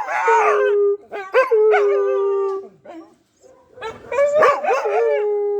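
A pet dog howling in three long, drawn-out calls. Each call starts with a wavering, yodel-like warble and settles into a held tone that sags in pitch at the end.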